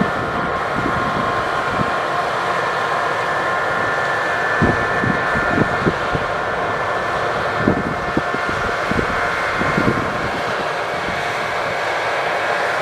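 New Holland CX8080 combine harvester running under load: a steady machinery drone with a whine of several fixed pitches, and irregular low thumps through the middle.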